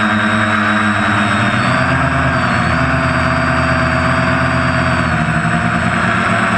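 Quadcopter's electric motors and propellers buzzing steadily, heard from the camera mounted on the craft itself. The pitch rises about two seconds in and falls back a little after five seconds as the throttle changes during a manoeuvre.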